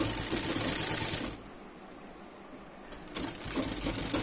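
PUNAM sewing machine stitching fabric with a steady run of needle strokes. It stops a little over a second in and starts stitching again about three seconds in.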